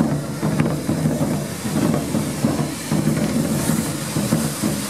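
Hand-held correfoc fireworks (carretilles) spraying sparks: a loud, continuous rushing hiss with crackling.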